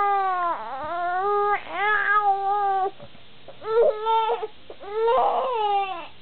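Young baby crying in five wailing cries, each about a second long with short breaks between, while stuck lying on its tummy: fussy, frustrated crying.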